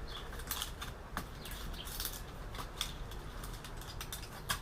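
Faint, irregular light clicks and ticks of small computer parts being handled during disassembly.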